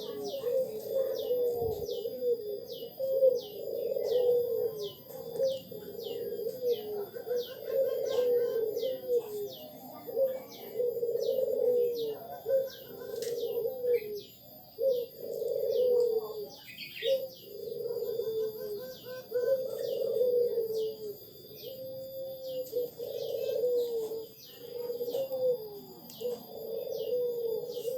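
A dove cooing in repeated phrases about every two seconds. Above it, a small bird gives a steady run of short, high, falling chirps.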